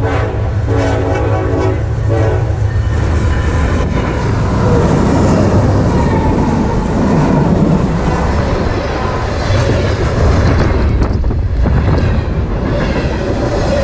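Freight locomotive horn sounding a chord that cuts off about two and a half seconds in, followed by the train rolling past, a loud steady rumble of wheels on rail with clickety-clack over the joints.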